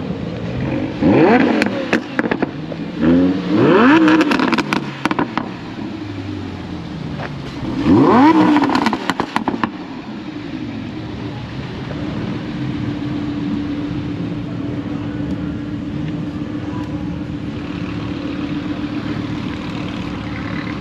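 Lamborghini Huracán's V10 revved three times, each a quick rising rev followed by exhaust crackles and pops on the lift-off. After that the engine settles into a steady low drone as the car rolls slowly.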